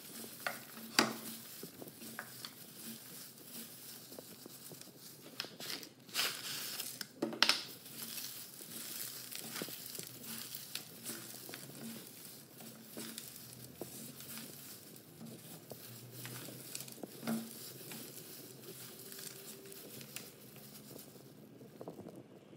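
A hand in a plastic glove tosses and mixes a dry salad of shredded cabbage and crunchy fried bujia on a plate. The glove crinkles steadily and the crisp pieces rustle, with a few sharper clicks.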